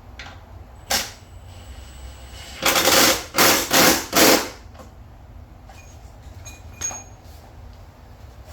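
Impact wrench run in four short rattling bursts, fastening a wheel bolt, with a sharp click before them and a few lighter clicks after.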